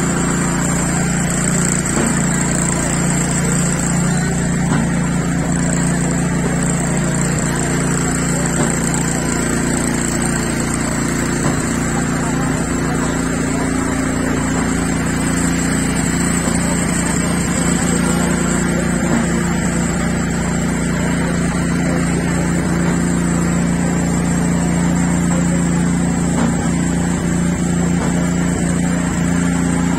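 A motor engine running at a steady speed: a constant drone that holds one pitch throughout, with faint voices in the background.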